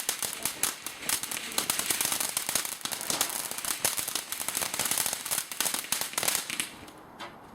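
Titan's Fury firework crackling: a dense, rapid run of sharp crackles that stops abruptly near the end.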